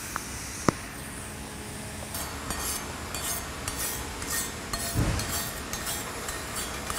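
Hand wire brush scrubbing the weld on a carbon-steel pipe: a run of short, scratchy strokes a few times a second, starting about two seconds in, with a low thud near five seconds. Two sharp clicks come first. This is cleaning the TIG fill pass before the cap.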